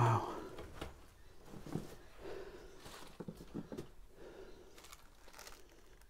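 A loud dull thump right at the start, followed by scattered rustling, crinkling and light knocks of clutter and debris as someone moves through a cluttered room.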